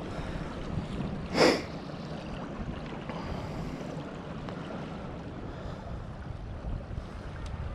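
Steady rush of river current with wind noise on the microphone, and one brief loud swish about a second and a half in.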